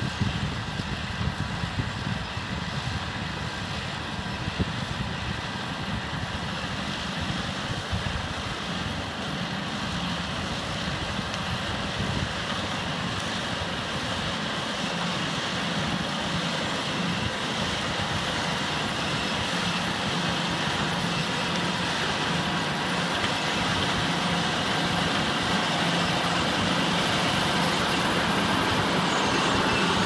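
Small plot combine running while it cuts and threshes barley: a steady engine and machinery noise that grows gradually louder as the machine comes closer.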